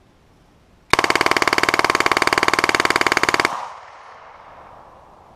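M11/9 9mm submachine gun firing one long full-auto burst of about two and a half seconds, a very rapid, even string of shots that empties its 50-round Zmag magazine non-stop without a stoppage. It starts about a second in and cuts off abruptly, with a fading echo after.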